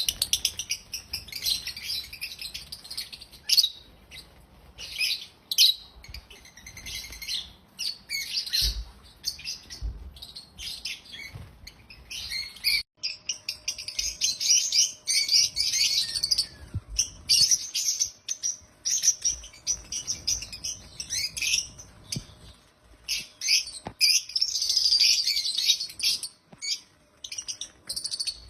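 African lovebirds chirping, a dense, rapid stream of high, overlapping chirps and squeaks, with a brief break about halfway through.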